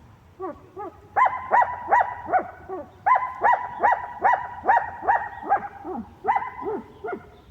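Dogs barking in quick runs of sharp, high yelps, about three a second, with lower yelps mixed in; three runs with short pauses between them.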